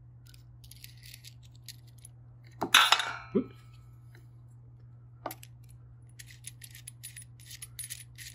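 Small metal soldering-iron parts handled during a tip change: a sharp metallic clink with brief ringing about three seconds in as a part is set down or dropped, then a run of light clicks and scrapes near the end as the tip and threaded barrel nut are fitted back onto the iron. A steady low hum lies underneath.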